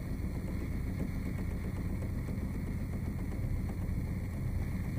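Small motorboat's engine running steadily at low speed, a constant low rumble.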